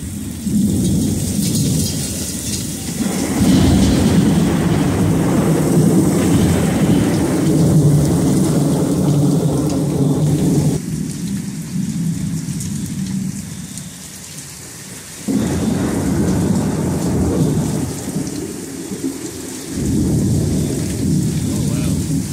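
Thunder rumbling over steady heavy rain: a long low roll begins about three seconds in and lasts several seconds, with further rumbles starting suddenly later on.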